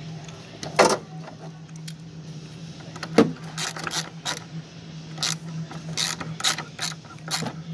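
Socket ratchet wrench clicking in short runs of strokes as it turns a bolt beside a car battery, from about halfway through; two sharp knocks come before it, about one second and three seconds in.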